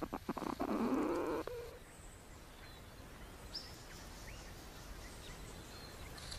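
A short burst of rough rustling noise with a few clicks in the first second and a half, then quiet outdoor background with a few faint, brief bird chirps.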